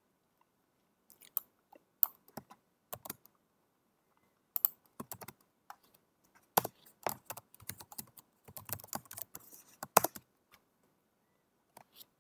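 Typing on a computer keyboard: irregular runs of key clicks with short pauses between them and a few louder keystrokes.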